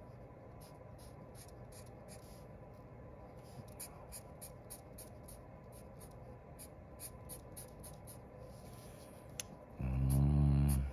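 Fine-point felt-tip marker scratching and tapping on paper in short strokes. Near the end a man's voice gives a brief held hum.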